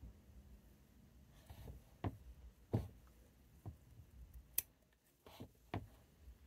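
Bonsai scissors snipping through small conifer shoots: about six short, sharp snips spread over a few seconds.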